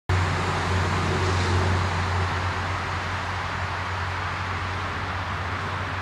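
Steady outdoor background noise with a low hum under it, easing off slightly after a couple of seconds; no distinct events.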